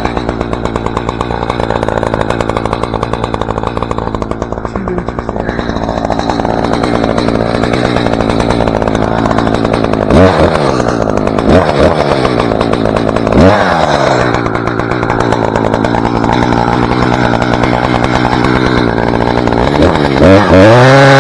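Two-stroke chainsaw running under load while cutting a spruce trunk. Its engine speed drops and rises again several times about halfway through, and again near the end.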